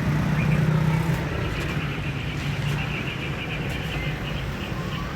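Small motorbike engine running steadily, a little louder in the first second and then easing off. A fast run of high chirps sounds through the middle.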